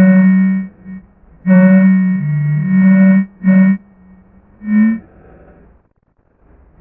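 Synthesized electronic monster call used as a creature sound effect: a buzzy, steady-pitched tone held for a moment, then a longer call, then two short blips, fading to near silence near the end.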